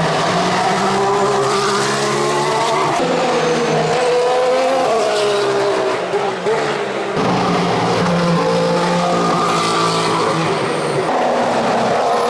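2014 Formula One car's 1.6-litre turbocharged V6 engine running hard, its pitch rising and falling with the throttle and gears, with sudden jumps in the sound about three and seven seconds in.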